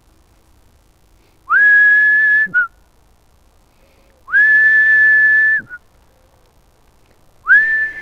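Three long, steady whistles of one pitch, each about a second long, sliding up quickly at the start and followed by a short lower blip. It is a recall whistle calling a 16-week-old Labrador puppy back.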